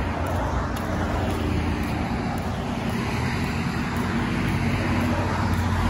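Stroller wheels rolling over a concrete sidewalk: a steady low rumble.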